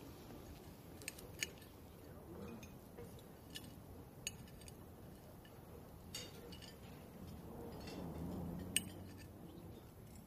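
Light clinks of cutlery on dishes, a scattering of short, sharp ticks a second or so apart.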